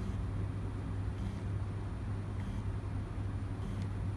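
M3D Micro 3D printer's stepper motors running during a 4-axis skip test: a steady low hum with a faint tick roughly once a second.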